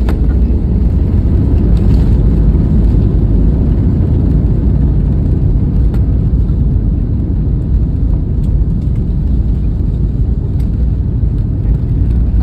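Jet airliner landing, a loud steady low rumble.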